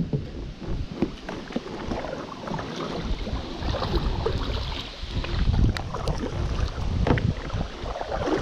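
Gusty wind buffeting the microphone, an uneven low rumble, with a few light clicks or knocks about six and seven seconds in.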